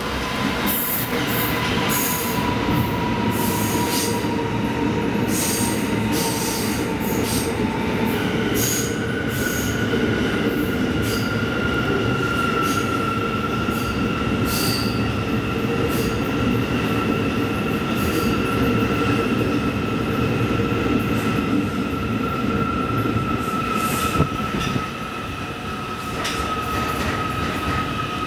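New York City subway train running into the station and along the platform, with a steady rumble and many short clicks from the wheels. A long, high wheel squeal sinks slowly in pitch as the train slows.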